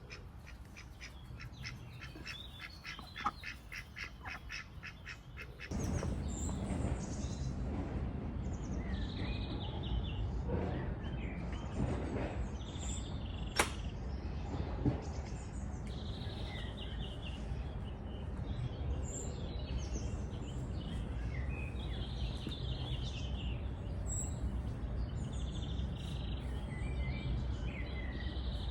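Domestic ducks quacking in a rapid run of calls for the first few seconds. Then a sudden change to a steady low rumble with small birds chirping over it.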